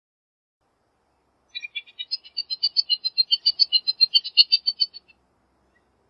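Bullock's oriole giving its chattering rattle call: a fast, even run of short high notes, about seven a second. It starts about a second and a half in, grows louder and stops after about three and a half seconds.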